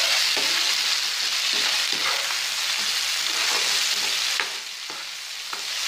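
Chopped onions, curry leaves and green chillies sizzling in hot oil in a nonstick frying pan, with ginger-garlic paste just added, as a spatula stirs and scrapes them in short strokes. The sizzle drops a little about four and a half seconds in.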